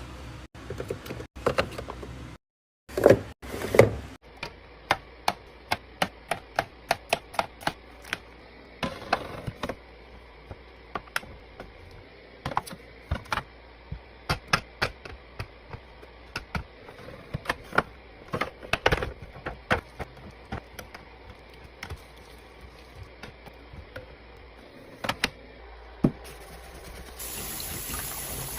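Containers and food items being handled and set down while a refrigerator is organised: a long run of sharp clicks and knocks, with two louder thumps about three seconds in. A steady hiss comes in near the end.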